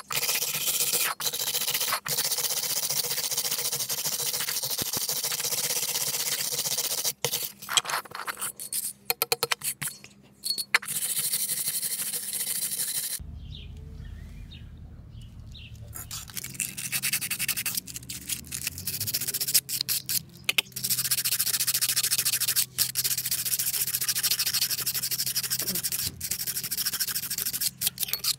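Rusty metal garden bell being scrubbed by hand with a wire brush and an abrasive block: steady rubbing that breaks into short separate strokes from time to time. About halfway through the scrubbing stops for a few seconds, leaving a quieter low rumble, then the rubbing starts again.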